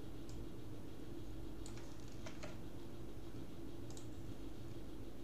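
About five scattered clicks from a computer keyboard and mouse over a steady low background hum.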